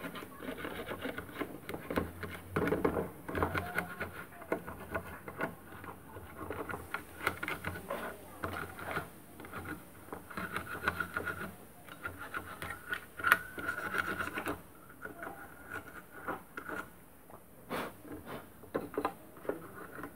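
Bristles of a small plastic brush scrubbing over a computer motherboard's components, a run of quick, irregular scratching strokes.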